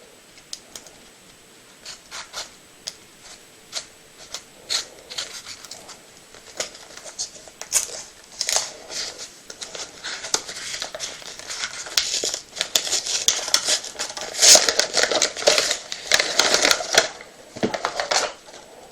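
Packaging on a sealed box of playing cards being torn and crinkled open. A few separate clicks and scratches at first, then a long, dense stretch of crinkling and tearing about halfway through that dies away near the end.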